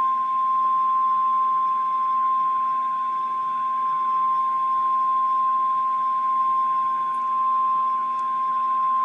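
NOAA Weather Radio warning alarm tone ahead of a special marine warning: one steady, unbroken high beep, heard through a radio receiver with a faint hum underneath.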